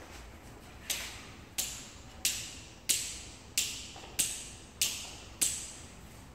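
Eight sharp taps in a steady rhythm, about three every two seconds, each trailing off briefly.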